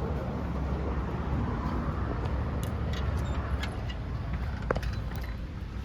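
Steady low rumble and road noise of a car driving, with a few light clicks.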